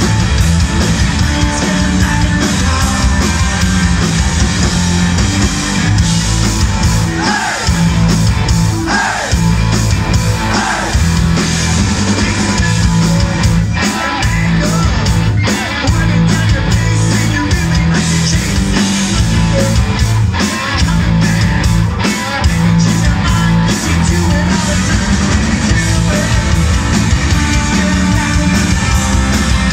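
Live rock band playing loud with electric guitars and drums, and vocals sung into the microphones.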